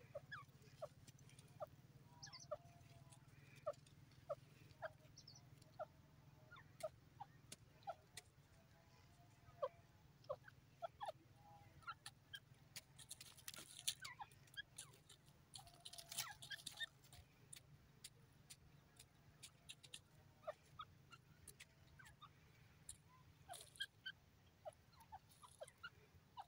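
Faint, soft clucking notes and scattered sharp ticks from a grey francolin foraging on dry soil, with two brief rustling bursts about 13 and 16 seconds in.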